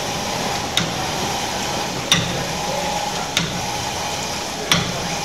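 Steam pumping engine running: a steady hiss with a sharp click about every 1.3 seconds, four times.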